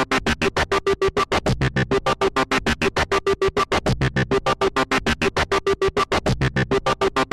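Electronic background music: a synth pattern chopped into rapid, even pulses, about eight a second.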